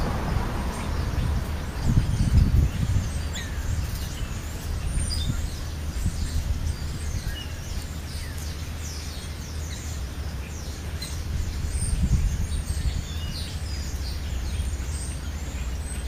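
Birds chirping: many short, high, down-slurred calls that grow busier from about five seconds in. Underneath runs a steady low rumble that swells briefly twice, about two and twelve seconds in.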